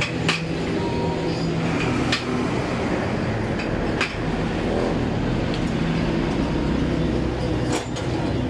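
A motor runs steadily in the workshop, with a few sharp metallic clicks and clinks as steel calipers are handled against a bare cylinder block.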